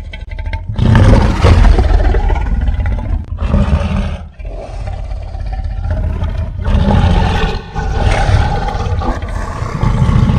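Giant cartoon tyrannosaur roaring: a string of long, loud roars with a heavy low rumble, broken by short pauses about four and again about seven and a half seconds in.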